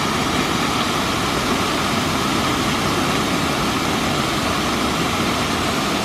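Small waterfall pouring over a concrete dam wall onto a heap of branches: a loud, steady rush of falling water.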